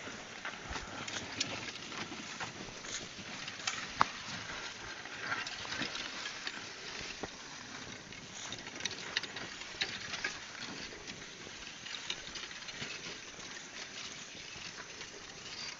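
Oxen pulling a plough through loam soil: scattered soft crackles and patter over a steady outdoor hiss, with one sharper knock about four seconds in.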